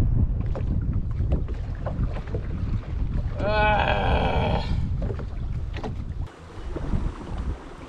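Wind buffeting the camera microphone, a steady low rumble. About three and a half seconds in, a brief sound with a clear pitch is followed by about a second of hiss.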